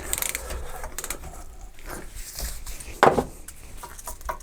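Faint scraping and handling noises from work on a stripped-down engine, with one sharp knock about three seconds in.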